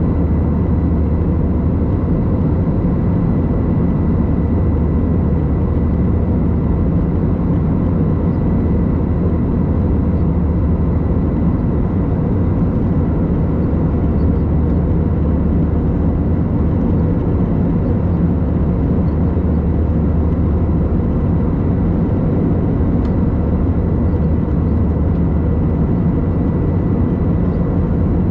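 Airbus A321 cabin noise at a window seat: a steady, loud low drone from the jet engines and air, unchanging throughout, with a faint steady high whine above it.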